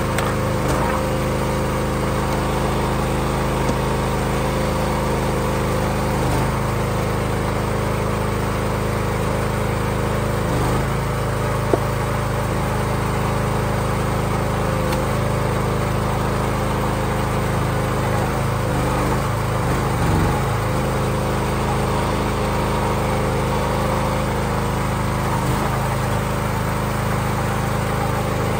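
Small gas engine of a log splitter running steadily. Its pitch sags briefly a few times as the splitter takes load on the rounds, and there is one sharp crack about twelve seconds in.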